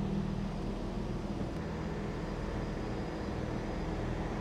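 Steady low hum of idling vehicle engines, an unchanging sound with a couple of steady low tones.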